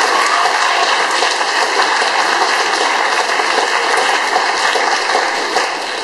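Audience applauding, a dense steady clapping that dies down near the end.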